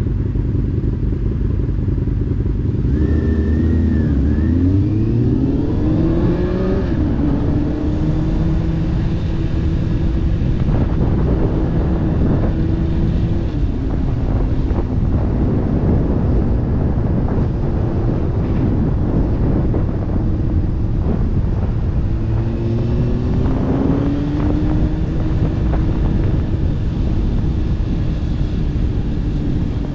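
Sport motorcycle engine idling, then revving up and accelerating away about three seconds in, climbing in pitch through the gears, then cruising steadily under heavy wind rush on the helmet-mounted microphone; it accelerates again a little after twenty seconds in.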